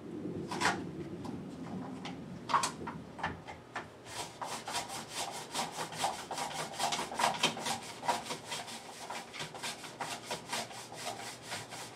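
A potato being pushed back and forth over a mandoline slicer's blade with a hand guard, cutting slices. A few separate strokes come first, then from about four seconds in a quick, even rhythm of about four strokes a second.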